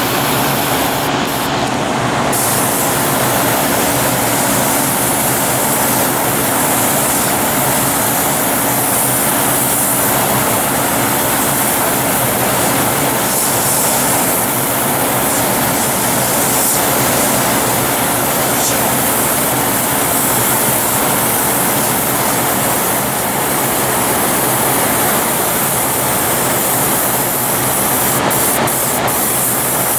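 An airbrush spraying paint with a steady hiss, over a steady low hum. The highest part of the hiss briefly drops out about a second in and again near the end.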